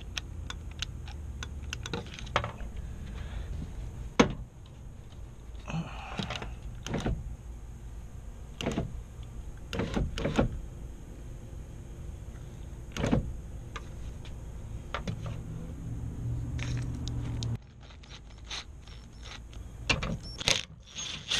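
A Nissan Murano's driver-side power window motor and regulator run the glass inside the opened door, worked by the door switch. The steady hum runs with scattered clicks and knocks, and the motor stops suddenly about seventeen seconds in.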